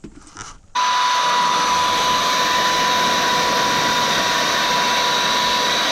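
A power tool cuts in under a second in and runs at a steady speed, with a high whine over a loud hiss.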